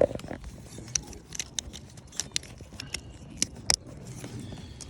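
Plastic wiring-harness connectors and loose wiring handled in an engine bay, a scatter of sharp clicks and light rattles while connectors are unplugged and pushed together.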